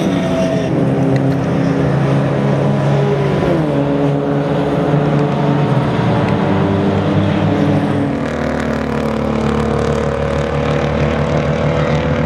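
Several amateur endurance race cars' engines running hard as the field goes past, many engine notes overlapping. Pitch drops about a second in and again about three and a half seconds in as cars pass. A steadier, lower drone from the pack takes over about eight seconds in.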